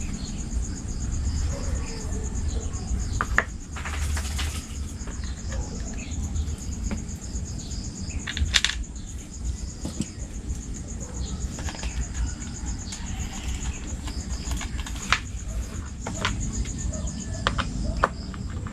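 Scattered clicks, knocks and short scrapes of exhaust parts and tools being handled during a scooter pipe install, with brief louder rustles around four and eight and a half seconds in. A steady high whine and a low rumble run underneath.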